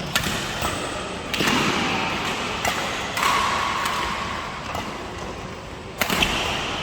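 Badminton rackets hitting a shuttlecock in a rally, about six sharp strikes spread unevenly over several seconds, with a few short high squeals between them.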